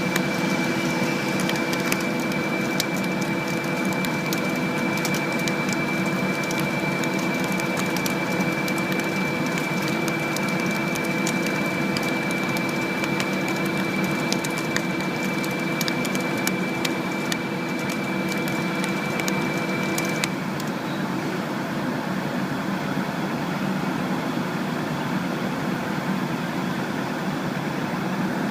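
Neway NL635SZ CNC lathe running, a steady machine noise with a high whine and lower hums, and irregular crackling and ticking. The whine and part of the hum stop about two-thirds of the way through, while the crackling and the machine noise go on.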